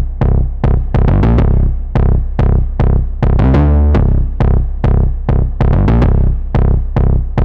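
Synthesizer preset playing a rhythmic electronic pattern: punchy percussive hits with a deep bass, about three to four a second, some with short pitched ringing tails.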